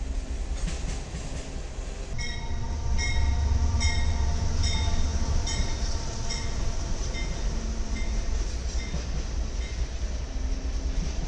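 Freight train with diesel locomotives passing close by, a heavy low rumble. From about two seconds in, a bell strikes a little under twice a second and fades away over several seconds.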